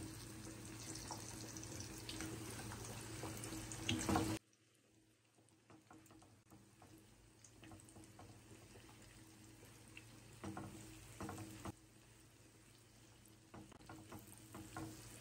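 Paneer pakoras in gram-flour batter frying in hot oil in a nonstick pan: a steady sizzle that drops much quieter about four seconds in. A spatula taps and scrapes the pan a few times as the fritters are turned.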